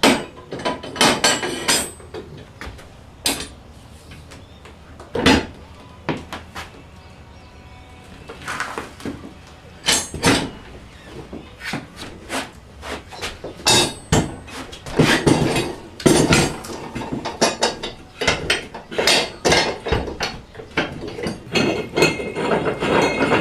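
Irregular metal clanks and knocks, with pauses between, as the bead of a small tractor tire is broken from its steel rim on a manual tire changer.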